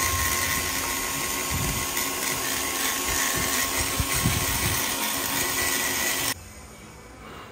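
Flexible-shaft rotary grinder running with a steady whine while it grinds inside the port of a motorcycle cylinder head. It stops abruptly about six seconds in.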